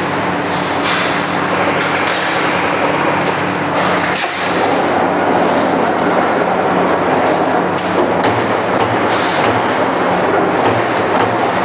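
Automatic sheet-metal punching machine running: a loud steady machine noise over a low motor hum, with scattered short metallic knocks.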